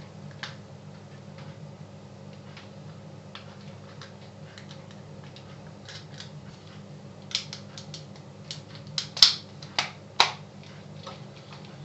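Plastic clicks and taps from an electric shaver's housing as its rubber inserts and cover halves are pressed into place by hand, with a cluster of sharper snaps in the second half. A steady low hum runs underneath.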